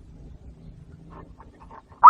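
Quiet background: a faint low steady hum with a few faint short chirp-like notes through the middle.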